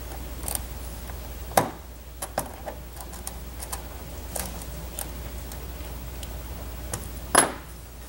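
Small screwdriver tightening the terminal screws of a plastic video balun onto CAT5 wires: scattered light clicks and taps, with two louder knocks, one about a second and a half in and one near the end.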